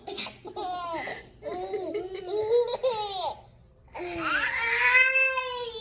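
A baby laughing and squealing in short high-pitched bursts, then, after a brief pause, one long drawn-out squeal.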